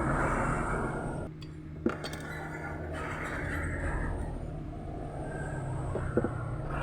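Two light clinks of small repair tools against the phone, one about two seconds in and one near the end, over a steady background rumble with a low hum.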